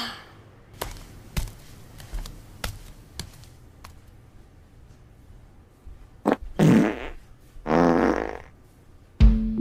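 Cartoon fart sound effects: a short one about six seconds in, then two longer farts, each under a second. Faint regular ticks come before them, and guitar music starts just before the end.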